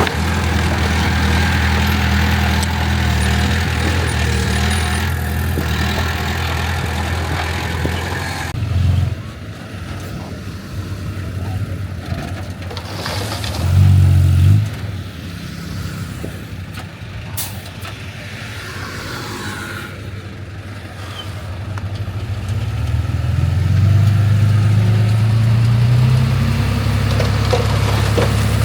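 Heavy diesel engines of earthmoving machinery running. A steady low engine note drops off about nine seconds in, a short loud burst comes around fourteen seconds, and over the last few seconds an engine grows louder and rises slightly in pitch.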